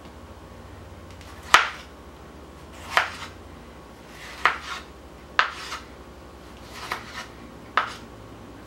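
A high-carbon steel kitchen knife slicing through a tomato, the blade knocking on the cutting board at the end of each stroke: six knocks, a little over a second apart.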